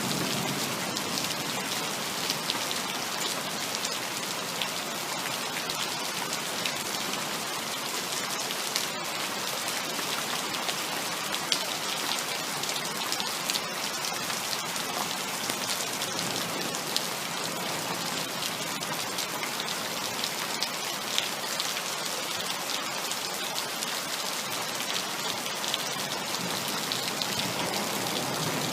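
Heavy rain falling steadily, a dense patter of drops hitting a surface, with no thunder.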